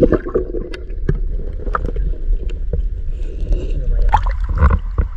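Muffled sound through a camera held underwater in shallow sea: a steady low rumble of moving water with scattered clicks and knocks, growing louder about four seconds in as a hand digs into the sandy seabed.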